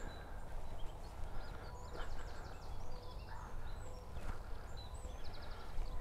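Small birds singing and calling around a frosty woodland edge, with short high chirps and several quick trills, over a low wind rumble; footsteps on frozen grass come faintly now and then.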